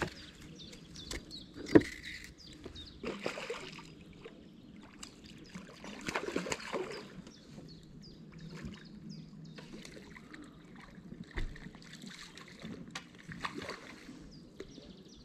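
Intermittent water splashing and sloshing at the lake's edge, with a sharp knock about two seconds in.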